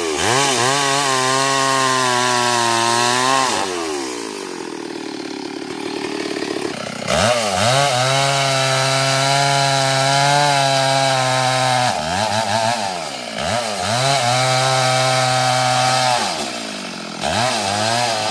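Stihl MS 382 two-stroke chainsaw revving up and cutting through a mahogany log in four bursts of a few seconds each, dropping back to idle between them.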